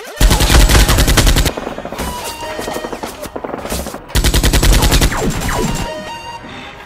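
Automatic gunfire sound effect dubbed over a toy blaster firing: two rapid bursts, each about a second and a half long, one just after the start and one about four seconds in, each followed by a fading ringing tail.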